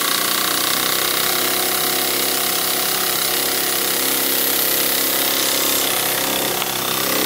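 Single-cylinder model steam engine (Westbury Trojan) running fast on steam at about 45 psi, a steady rapid run of exhaust beats and working parts.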